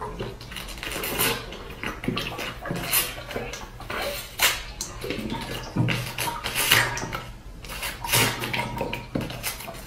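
A person gulping a drink from a plastic bottle: a series of swallows with the liquid gurgling, roughly one a second.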